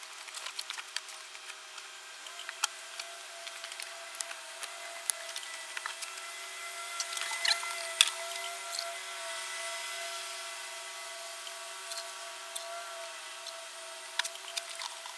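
Scattered light clicks, knocks and clatter of tools and items being handled and put away during cleanup after an oil change, over a steady hum.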